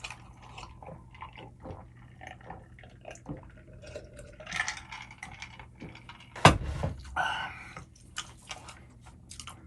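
Close-up eating sounds: wet slurping of noodles with many small clicks and taps, and one sharp knock about six and a half seconds in.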